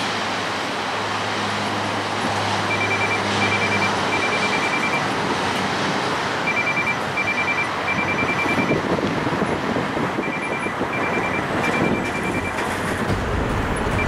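Dash 8 Q400's two Pratt & Whitney Canada PW150A turboprops at takeoff power during the takeoff roll: a steady engine-and-propeller roar over a low drone. A faint, high, rapid chirping recurs in short runs.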